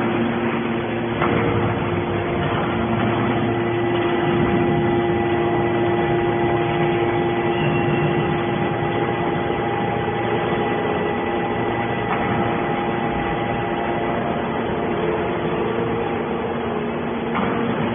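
Hydraulic can baler's power unit running steadily: a hum with several steady tones over mechanical noise, with a brief knock about a second in and another near the end.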